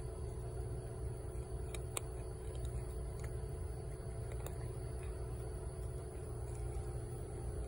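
Cat eating dry kibble, a few faint sparse crunches over a steady low mechanical hum.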